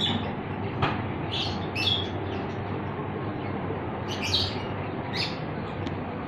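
Small pet birds chirping in short, high calls, scattered a second or so apart, over a steady low hum.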